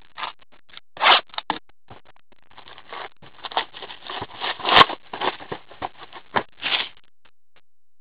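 Cellophane shrink wrap being torn and crinkled off a cardboard card hobby box, in irregular crackling, scraping bursts with one sharp click about five seconds in.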